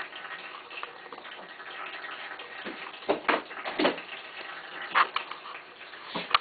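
Steady trickling and gurgling of a pet water fountain that is running low on water. Over it come a few short scratches and knocks, about three seconds in, near four seconds, at five seconds and near the end, as kittens play at a cardboard scratcher toy.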